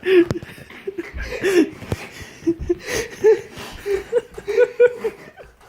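Chuckling laughter in short repeated bursts, in reaction to a joke.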